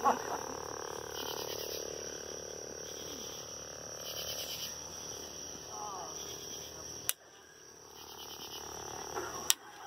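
Night chorus of insects and frogs: a steady high-pitched insect drone, with a short pulsing call repeating about every three seconds. Two sharp clicks cut in, one about seven seconds in and one near the end.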